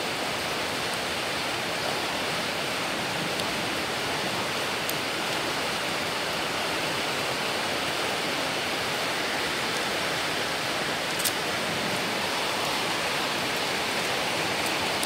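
Steady hiss fills the background, with a few faint clicks of acrylic beads being threaded onto a line; the clearest click comes about eleven seconds in.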